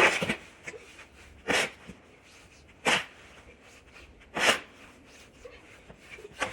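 Snow shovel strokes in deep snow: four short scraping bursts, about one and a half seconds apart.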